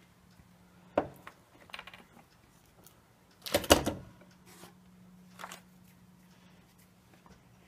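Pliers and small steel transaxle parts clinking and knocking against each other and the case. The sounds come as scattered sharp clicks, with the loudest cluster of clanks about three and a half seconds in.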